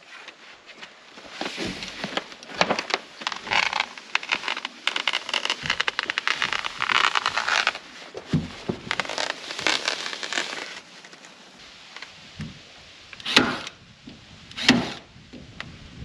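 Kimberly-Clark Block-It plastic housewrap crinkling and rustling as the sheet is unrolled and pulled along the wall. Near the end, two sharp snaps of a power stapler driving staples through the wrap, about a second and a half apart.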